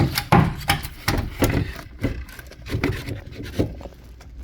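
Irregular clicks, knocks and scrapes of metal and plastic parts being handled in an engine bay as the alternator is unplugged and worked loose.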